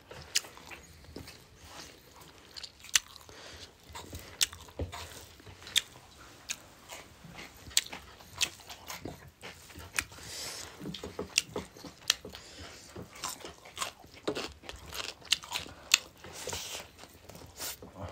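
Close-up eating sounds of people eating by hand: chewing and biting, with sharp crunches and clicks scattered irregularly throughout.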